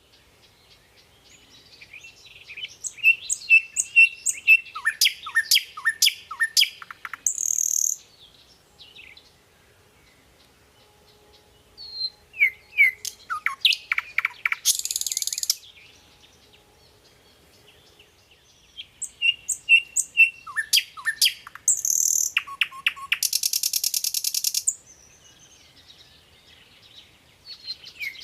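A songbird singing in three long phrases separated by pauses of a few seconds. Each phrase is a run of quick chirps and falling notes that ends in a buzzy, high trill.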